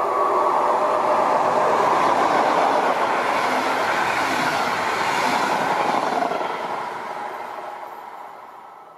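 Double-deck passenger train passing close at speed, a loud steady rush of wheels on rail that fades away over the last few seconds as it recedes.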